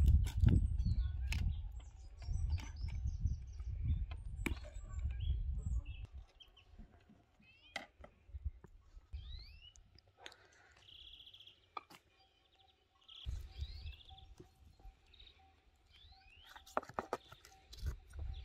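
Small birds chirping in short rising and falling notes, with wind rumbling on the microphone for the first six seconds. Scattered light clicks and taps come from a knife working fish pieces in a plastic bowl.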